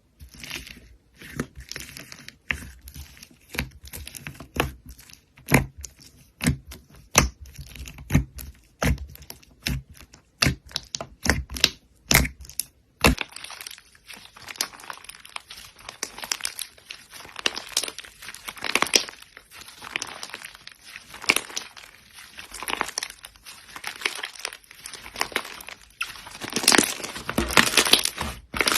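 Slime being pressed and squeezed by hand, giving sharp separate pops and clicks for about the first half, then a denser, steady crackling.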